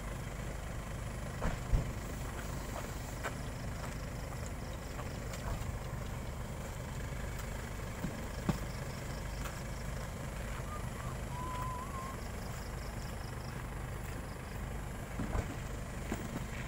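Steady low rumble of distant road traffic on a night lakeshore, with a few short sharp clicks.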